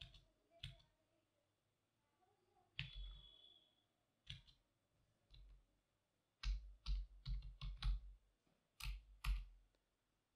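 Computer keyboard keystrokes. First a few scattered single clicks, then a quick run of about six keys two-thirds of the way through, then two more key presses near the end.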